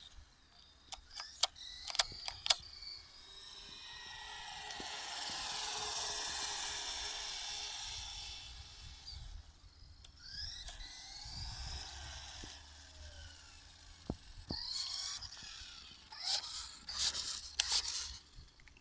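Taiyo Jet Racing radio-controlled buggy's small electric motor whining as it drives, its pitch gliding up and down as it speeds up and slows, in several runs. A few sharp clicks come near the start.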